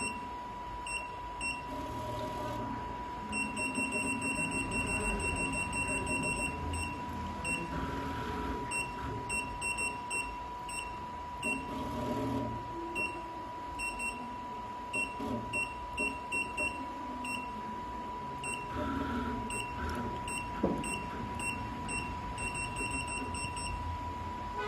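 Control-panel key beeps of a programmable pattern sewing machine as its buttons are pressed: short high beeps, single or in quick runs, with a fast string of beeps as a key is held about three seconds in. A steady high-pitched tone runs underneath.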